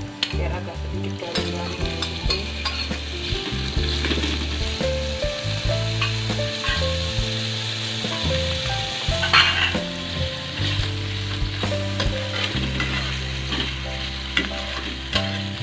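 Hot oil sizzling in a ceramic-coated wok as shredded boiled chicken is tipped in and stir-fried with sliced red chilies, shallots and garlic. A slotted spatula scrapes and taps against the pan as it stirs.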